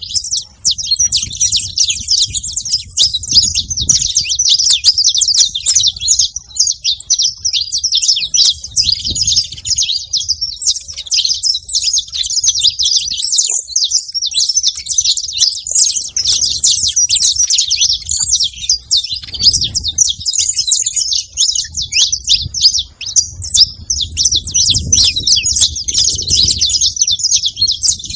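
A flock of saffron finches chattering together: many overlapping quick, high chirps in a dense, unbroken din.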